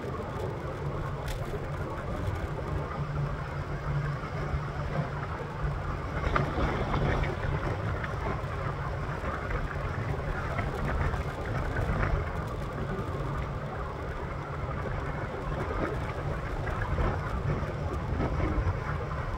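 Steady wind and road noise from an electric scooter being ridden along a road, with a low rumble from the tyres and the wind on the microphone.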